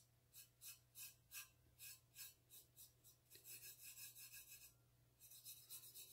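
Bare fingertip rubbing brown rust-effect paint onto a stainless steel tumbler, faint. At first it makes separate short scratchy strokes, about three a second; about three and a half seconds in they run together into steady rubbing, pause briefly, then pick up again.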